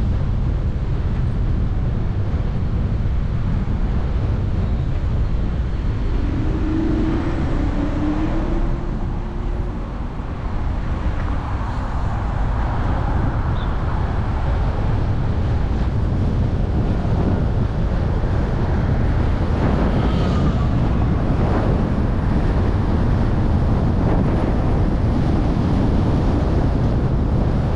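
Road and wind noise from a car driving, with wind buffeting the microphone.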